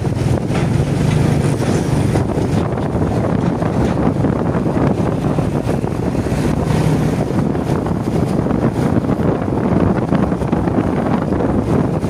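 A road vehicle running steadily while travelling, with wind rumbling on the microphone.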